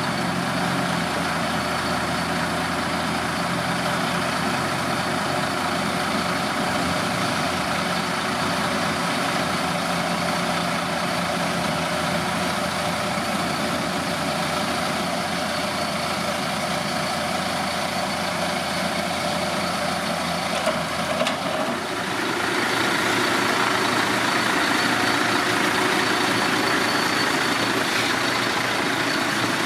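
Mercedes-Benz Actros concrete mixer truck's diesel engine running steadily. About two-thirds of the way through there are a couple of knocks, after which the running sound grows a little louder and brighter.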